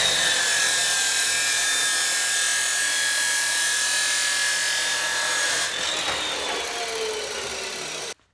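Power saw cutting through a steel roll-cage tube, trimming a few inches off its length: a loud, steady cutting noise with a high whine. Near the end the cut finishes, the whine falls as the blade winds down, and the sound stops.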